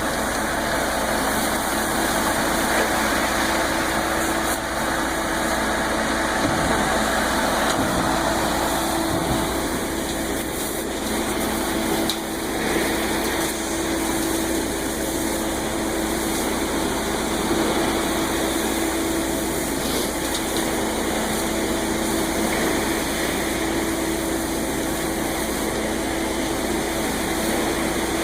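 Concrete mixer truck's diesel engine running steadily, with an even, unchanging hum.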